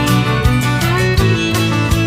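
Background music: an upbeat country-style track with fiddle and guitar over a steady beat.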